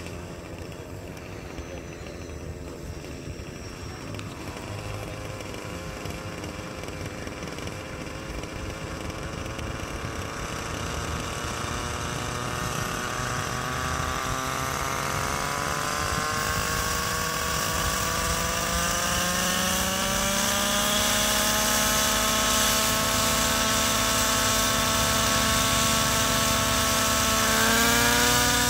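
Radio-controlled model helicopter's nitro engine running on the ground and spooling up the rotor. Its pitch and loudness rise steadily over about ten seconds, then hold, with a brief rise and dip near the end.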